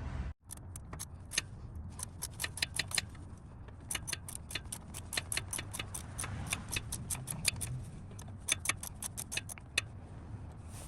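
Socket ratchet clicking in short runs of sharp metallic clicks, working the 16 mm oil drain plug nut loose under the truck.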